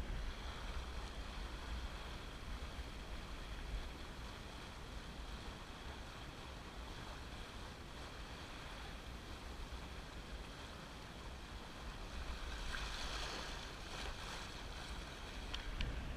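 Water rushing and splashing along the hull of a Drabant 27 sailboat moving fast under sail, with wind buffeting the microphone as a low rumble. The splashing grows louder for a few seconds about three-quarters of the way in.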